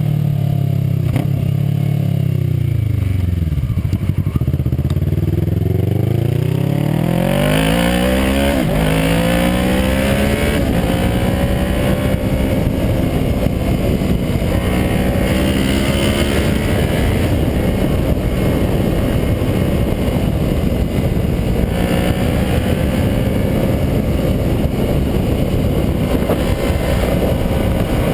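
Kawasaki ER-6n parallel-twin engine through an aftermarket WR exhaust, revs falling as the bike slows for the first few seconds, then rising steeply as it accelerates about six to nine seconds in. It then runs at cruising speed with heavy wind rush on the microphone and small rises and falls in revs.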